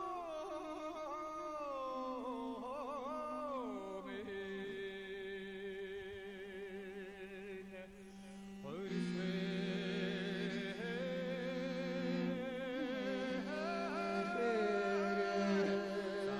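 Mongolian long song (urtyn duu) sung to morin khuur (horsehead fiddle) accompaniment: long held notes with wavering ornaments and slow slides in pitch over a steady lower tone. It drops away briefly about eight seconds in, then comes back louder.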